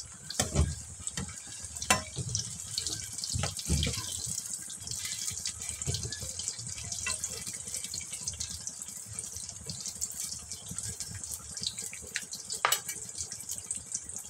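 Potato pakoras deep-frying in hot oil in a metal kadhai: a steady crackling sizzle. A few sharp clinks of the slotted spoon against the pan come in the first four seconds, and one more near the end.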